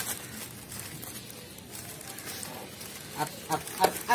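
Newspaper rustling and crinkling softly as it is folded by hand, then a voice breaking in with short, pitched sounds about three seconds in.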